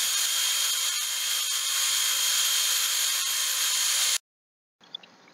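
Milling machine's face mill taking a light finishing skim pass across a metal L-profile held in the vise: a steady high hiss with a thin steady whine on top. It cuts off abruptly about four seconds in.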